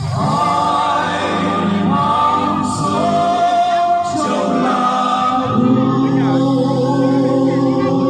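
Vietnamese Christmas carol sung with musical accompaniment, the voices holding long notes.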